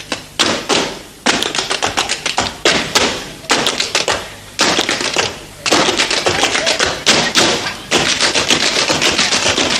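Tap shoes striking a floor in fast rhythmic runs of sharp taps, broken by brief pauses between phrases.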